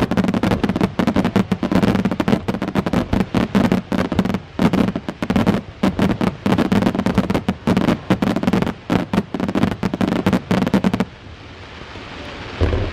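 Rapid barrage of firework shells bursting overhead, many sharp bangs a second. It stops suddenly about eleven seconds in, leaving a softer steady noise.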